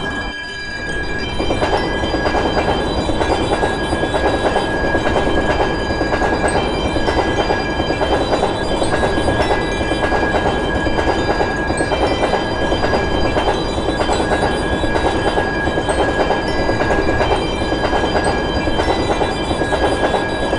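Train passing with a continuous rumble and clatter of wheels on the rails, a steady high tone running through it.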